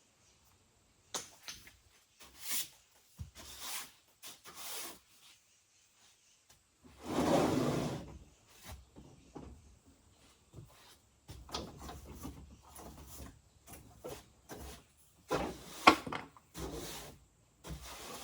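Objects being handled: scattered knocks, clicks and rubbing scrapes, with one louder scraping rush lasting about a second, about seven seconds in, and a sharp click near the end.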